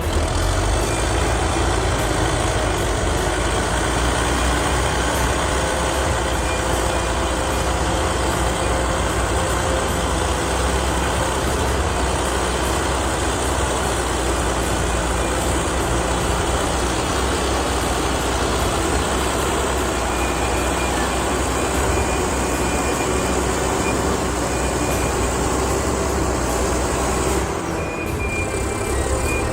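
Heavy construction machinery engines running steadily under load. A thin, high, steady tone, like a reversing alarm, joins about two-thirds of the way in.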